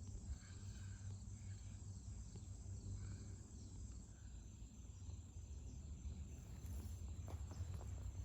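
Insects trilling in a faint, steady, high-pitched drone over a low rumble.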